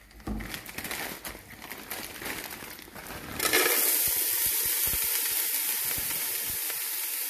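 A plastic bag of frozen diced onions crinkles as it is handled and tipped. About three and a half seconds in, a loud, steady sizzle starts suddenly as the frozen onions hit the hot vegetable oil in the pan.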